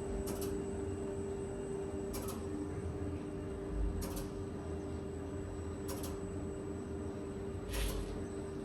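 Kleemann machine-room-less lift's control cabinet humming with a steady pitched tone while the lift travels, with a sharp click about every two seconds.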